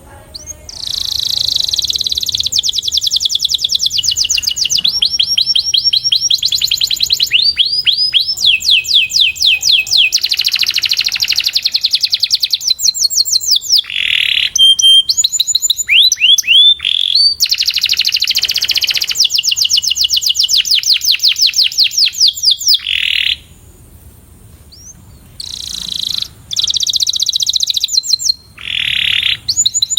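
Canary singing a training song: fast trills of rapidly repeated high notes, changing to a new phrase every second or two, starting about a second in and breaking off briefly twice near the end.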